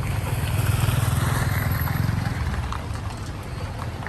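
A vehicle engine running close by with a low, rapidly pulsing rumble. It grows louder over the first second or two, then fades as it passes.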